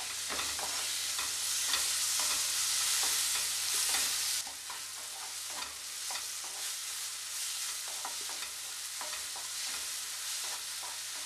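Wooden spatula stirring and scraping chopped tomato, onion and chillies around a non-stick kadai, over the sizzle of frying oil as the tomato cooks down soft in the masala. The sizzle is louder for the first four seconds or so, then eases.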